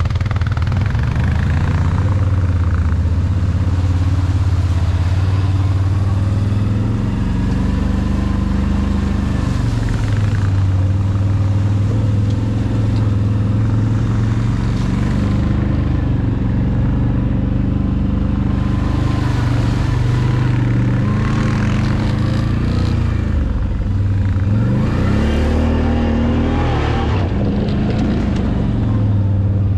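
ATV engine running at trail speed, its pitch rising and falling with the throttle, with one clear rev upward about three-quarters of the way through.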